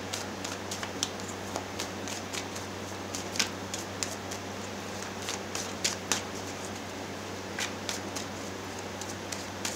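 Quiet room with a steady low hum and scattered light clicks and ticks at irregular moments.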